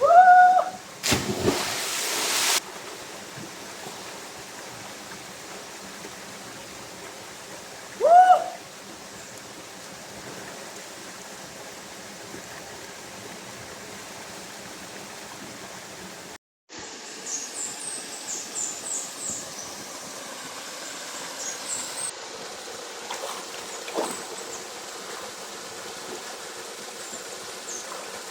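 Outdoor ambience with a steady background rush. Two short pitched calls that rise and fall sound about eight seconds apart, the first followed by a loud burst of rushing noise. After a brief dropout past the middle, a run of high, thin bird chirps comes in.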